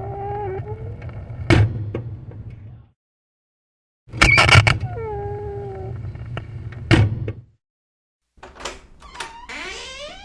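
Door hinges creaking in short edited takes: wavering squeals, each take ending in a sharp knock as the door shuts, with two abrupt cuts to silence. Near the end a higher creak squeals upward in pitch.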